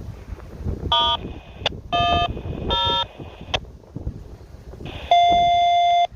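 Locomotive multi-chime air horn sounding three short blasts and then one longer blast of about a second, over low wind noise on the microphone.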